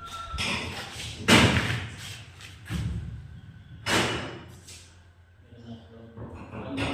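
Several irregular thuds and knocks, the loudest about a second in, dying down to a quieter stretch near the end.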